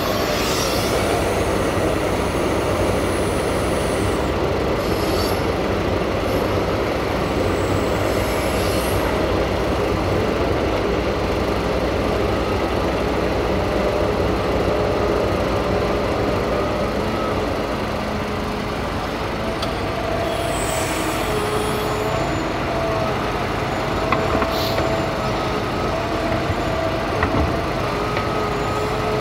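Liebherr R 944 crawler excavator at work: its diesel engine runs under load with a steady hydraulic whine that rises and falls as it digs soil and swings to load a dump truck. Short high metallic squeaks come now and then from the moving boom and bucket.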